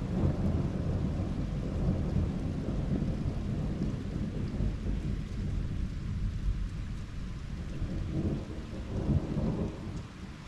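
Thunder rumbling over steady rainfall, heard through a window: a long low roll that builds as it begins, with a second swell about eight seconds in before it fades.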